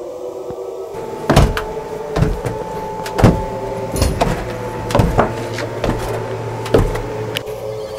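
Horror-film sound design: a steady eerie drone, with about eight heavy thuds or bangs at roughly one a second, irregularly spaced.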